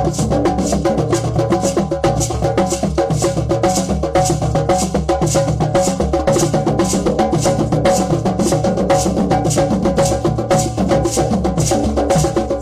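Drum circle of hand drums playing a steady, loud rhythm, with a sharp high accent on the beat about twice a second.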